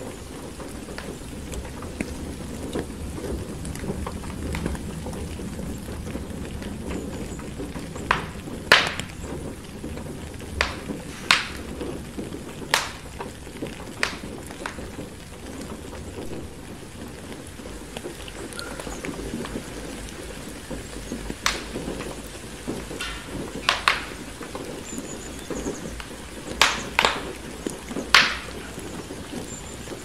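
Steady rain with a low rumble underneath, and a wood fire crackling: about a dozen sharp pops of burning logs, bunched in two spells.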